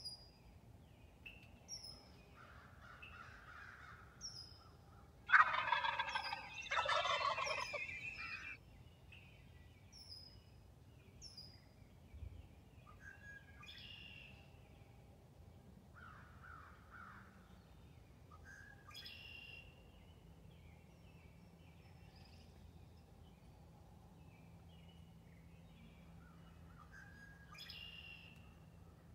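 Wild turkey gobbler gobbling loudly once, about five seconds in, lasting about three seconds. Small songbirds chirp faintly throughout.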